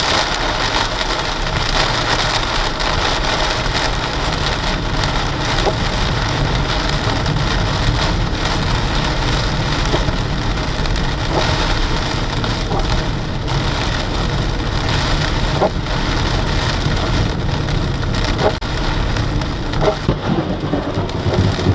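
Heavy rain pouring down in a thunderstorm, with a steady dense hiss of rain and low rumbling thunder underneath.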